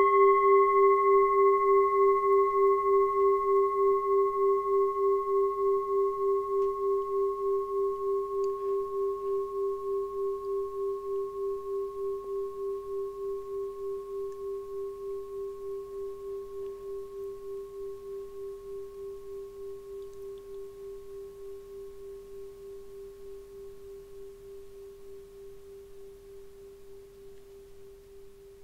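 A singing bowl ringing out after a single strike: one low tone with fainter higher overtones, wavering in a steady pulse and slowly fading. The higher overtones die away about eight seconds in.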